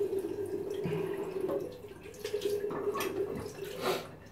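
Water running from a bathroom tap into the sink, with dripping and splashing, as used to rinse a safety razor between passes.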